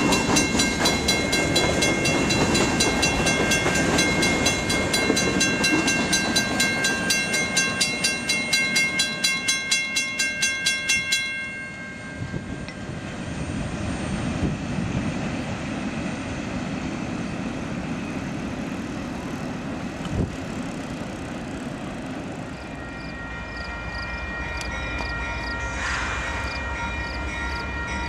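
Freight train rolling past a grade crossing, its rail cars rumbling, while a crossing bell rings in a fast steady rhythm. The bell cuts off suddenly about eleven seconds in, leaving the rumble of the cars, and a fainter ringing pattern comes back near the end.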